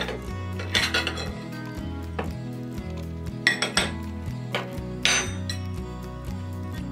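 Plates, a glass dessert bowl and spoons clinking and clattering on a tabletop as they are moved and set down, in three short clusters about one, three and a half and five seconds in.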